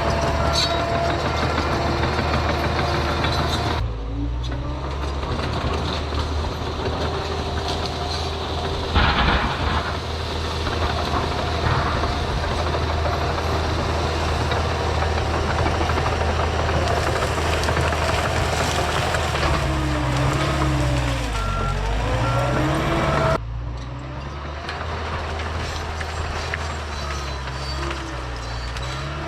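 John Deere 650K crawler dozer's diesel engine running hard while clearing brush; around twenty seconds in the engine note sags and climbs back up. The sound changes abruptly twice.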